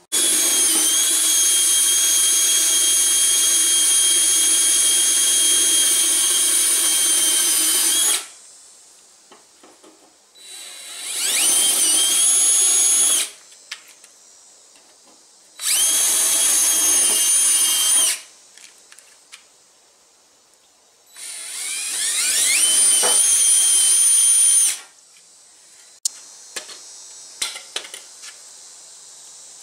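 Cordless drill boring into the front fender of a Lexus GX 460 to cut a snorkel hole. It runs in four bursts: one long steady run of about eight seconds, then three shorter ones, two of which rise in pitch as the drill spins up. A few light clicks near the end.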